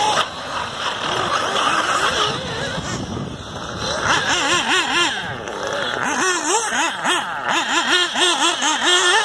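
Several small nitro RC buggy engines racing together, their high-pitched whine rising and falling quickly and over and over as the throttles open and close.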